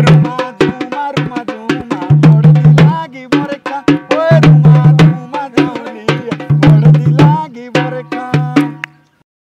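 Garhwali folk music driven by a fast dhol drum beat with a melody over it, fading out near the end.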